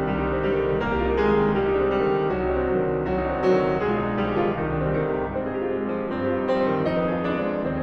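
Piano music, notes and chords played in a steady flow over a low bass.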